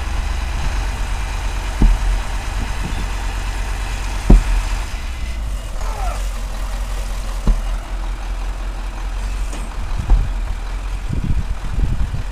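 Dull thuds of a handled wooden log tamper rammed onto the bottom of a bored pile hole, compacting the soil, roughly every two to three seconds. Under them, the steady idle of the auger truck's engine.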